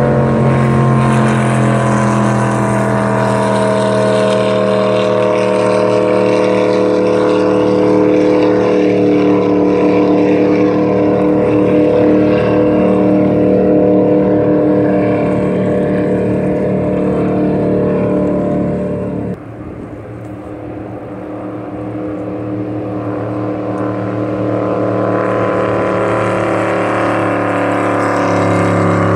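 Racing jet boats running at high speed on the river, a loud steady engine drone whose pitch falls slowly over the first two-thirds. The level drops suddenly about two-thirds through, then another boat's engine grows louder near the end.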